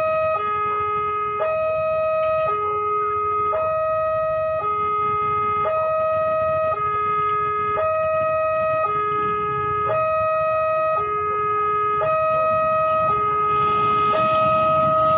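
Two-tone warning siren alternating high and low, each tone held about a second, over a steady higher tone. Near the end the rumble of an approaching diesel train rises beneath it.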